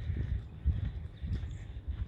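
Footsteps of a person walking on a grassy dirt track: soft low thuds, a little under two a second.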